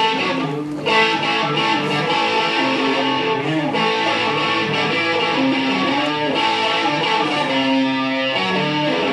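Electric guitar playing an instrumental introduction of strummed chords and held notes, with a brief break a little under a second in.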